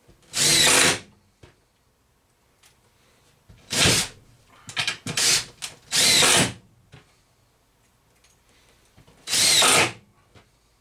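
Power drill driving screws in short runs of under a second, about five times, one of them a stuttering series of quick pulses, with the motor's whine shifting in pitch as each screw seats.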